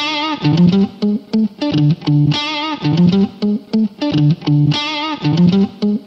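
Recorded guitar music: a short riff of plucked notes with a held, wavering note, repeating about every two and a half seconds.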